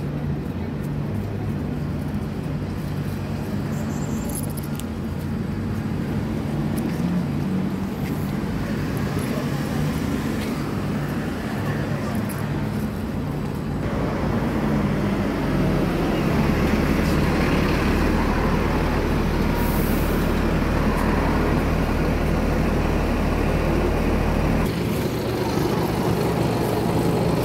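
City road traffic, then a double-decker bus pulls in close alongside and idles at the kerb. Its engine gives a low, steady drone that cuts off a few seconds before the end.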